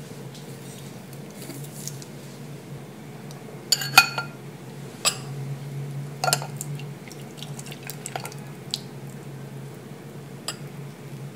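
Clinks and knocks of a metal mesh strainer and a saucepan against drinking glasses, the loudest a ringing clink about four seconds in, followed by a few lighter ones. Near the end the pudding mixture is poured through the strainer into a glass. A low steady hum runs underneath.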